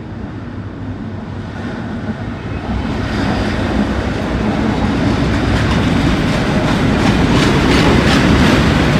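Class 70 diesel locomotive 70817 hauling an oil tank-wagon freight train on approach. Its engine rumble grows steadily louder, and from about halfway the rhythmic clickety-clack of wheels over rail joints joins in.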